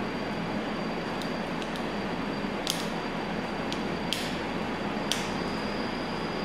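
Light metallic clicks and ticks, a handful scattered across a few seconds, as a precision screwdriver turns the small post screws that clamp the coil legs on a Geyser rebuildable atomizer deck. Under them runs a steady hiss.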